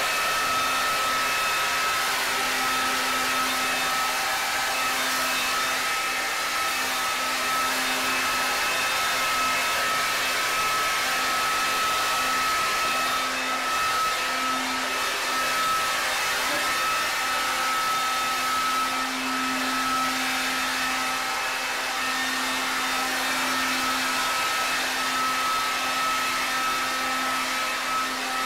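Corded electric leaf blower running steadily at one speed: a continuous rush of air with a steady motor hum.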